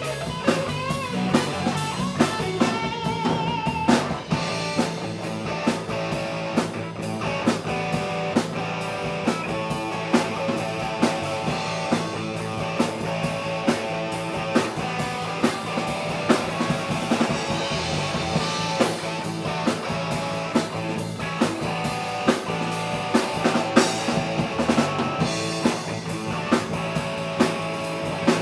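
Live rock band playing: electric guitar, electric bass and a drum kit keeping a steady beat.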